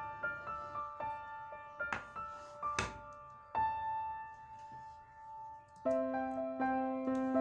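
Background solo piano music, gentle notes struck and fading, swelling into fuller chords near the end. Two brief sharp sounds about two and three seconds in.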